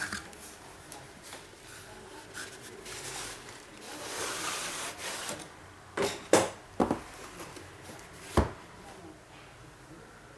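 Hands handling the graphics card's packaging: a rubbing, sliding sound about four to five seconds in, then four sharp knocks, the loudest about six seconds in.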